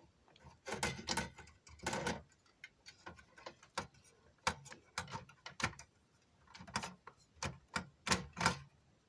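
Irregular clicks and knocks of hard plastic and metal parts being handled and fitted into a desktop PC case, with several louder knocks in the second half.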